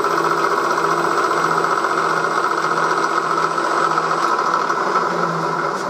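1938 Bridgeport M-head vertical milling machine running a small chamfering cutter around the edge of a steam-locomotive cylinder block: a steady whirring cutting noise.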